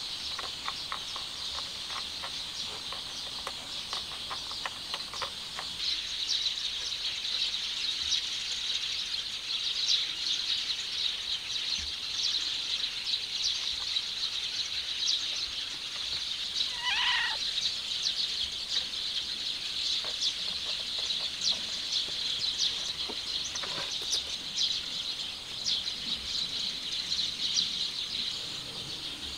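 Steady high insect chorus chirping outdoors. A short pitched animal call sounds about halfway through, and light ticks come in the first few seconds.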